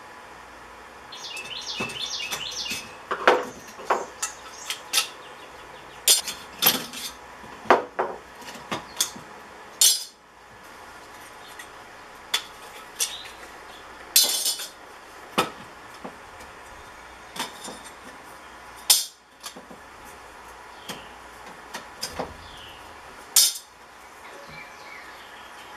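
Metal parts of a microwave magnetron clinking and clanking as they are pulled apart by hand and set down on a workbench. About twenty sharp, irregular knocks, with a brief rattle about two seconds in.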